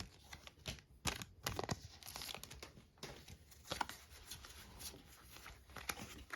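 Crinkling and rustling of a foil booster pack wrapper and trading cards being handled, with many small crackles and flicks.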